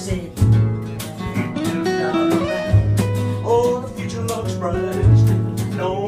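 Guitar played live, with chords over held low bass notes and a man's voice singing along.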